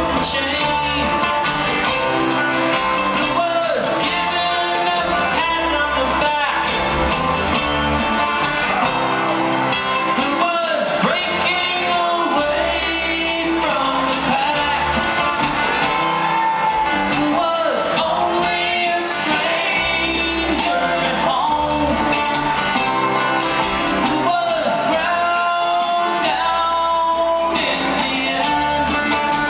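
A live string band plays with a man singing: acoustic guitar, mandolin, banjo and upright bass in a steady up-tempo groove, heard from the audience in a large hall.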